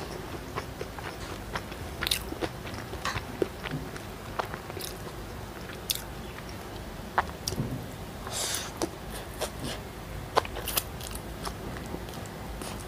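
Close-miked chewing of a mouthful of stir-fried rumpum instant noodles, with many short, sharp mouth clicks scattered throughout.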